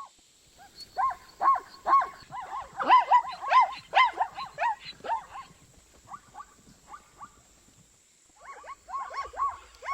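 Zebra calling: a rapid series of short yelping barks, several a second. The calls thin out past the middle, stop briefly, and start up again near the end.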